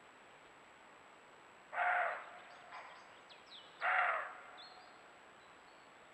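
Roe deer barking: two harsh, hoarse barks, each about half a second long and about two seconds apart. Faint high bird chirps sound between them.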